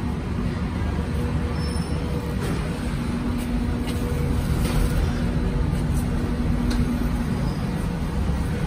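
Steady low rumble of motor vehicles in a motorbike parking area, with a constant low hum running through it.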